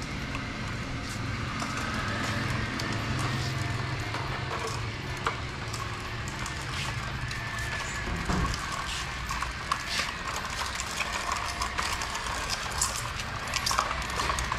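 Plastic toy trucks being towed in a line on a string, their plastic wheels rolling and rattling over the floor, with many small irregular clicks and knocks that grow more frequent in the second half.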